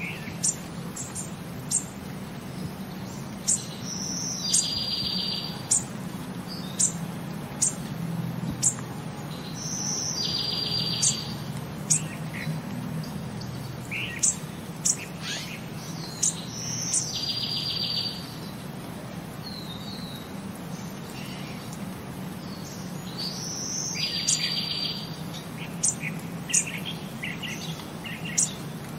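Birds chirping, with a short high trill about every six or seven seconds, over a steady low hum.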